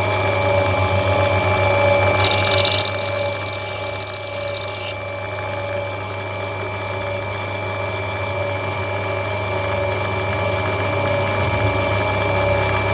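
Opal-cutting grinding wheel running with a steady motor hum; about two seconds in the stone is pressed to the wheel, giving a loud hissing grind for about three seconds before it is lifted off and the wheel spins on.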